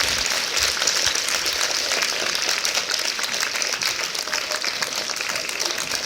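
Audience applauding, dense steady clapping that eases off slightly toward the end.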